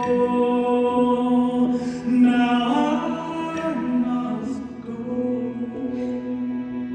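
Male solo voice singing through a microphone: a long held note, a short run of notes about two seconds in, then another sustained note that eases off near the end.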